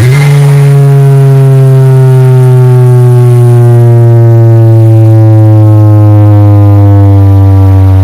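A very loud, deep bass tone from a large carnival sound system, starting suddenly and held unbroken while its pitch slowly falls.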